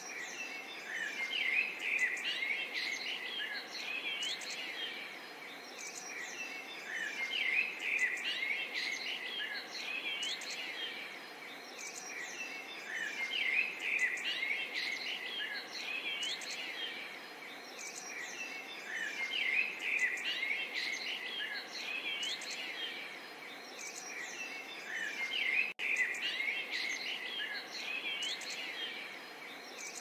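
A chorus of small songbirds chirping and trilling over one another above a faint steady background hiss, swelling and easing about every six seconds, with a very brief break in the sound near the end.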